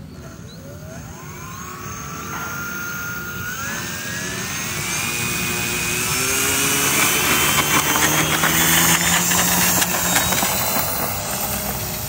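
Brushless electric motor (2208, 1000kv) and propeller of a foam-board RC plane throttling up for its takeoff roll: a whine rising in pitch over the first five seconds, then holding high and getting louder, fading near the end as the plane runs away down the field.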